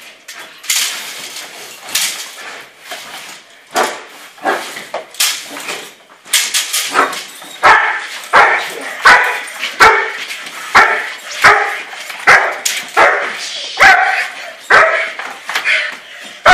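German Shepherd barking at a decoy in protection training, held back on a leash. From about six seconds in the barks come steadily, roughly one every three-quarters of a second.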